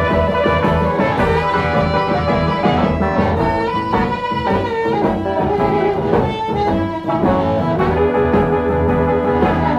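Blues band playing, with a harmonica lead holding long notes over electric guitar and bass.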